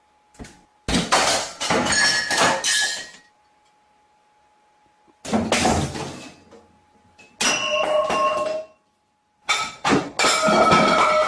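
Loud crashing and clattering in four bursts of one to two seconds each, separated by short quiet gaps, with ringing tones in the bursts.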